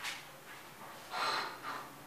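A person's short, faint breath about a second in, followed by a smaller second one.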